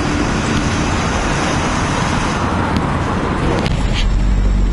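Steady road traffic noise, an even hiss and rumble with no single distinct vehicle. About three and a half seconds in, the hiss falls away and a deep low rumble takes over.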